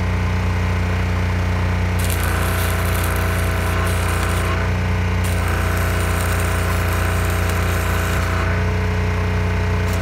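Electric arc welding on the steel frame of a kei truck during a repair of the broken frame. The arc crackles and sizzles in two long runs of a few seconds each, starting about two seconds in and again midway, then once more at the very end, over a steady low hum.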